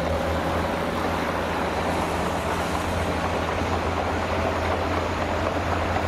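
Dump truck's diesel engine running steadily as the tipper bed is raised to dump sand: a low, even engine hum under a steady hiss.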